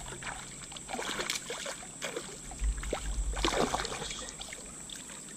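Creek water splashing and sloshing in short, irregular bursts as a hooked smallmouth bass is brought in by hand in the shallows.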